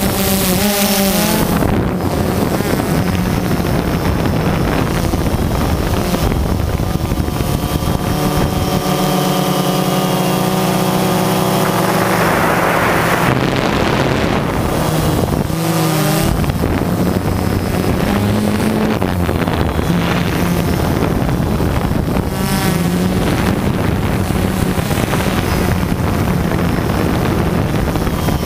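DJI Phantom 2 quadcopter's motors and propellers droning steadily, heard from the onboard camera, with the pitch shifting now and then as the motor speeds change, and wind buffeting the microphone.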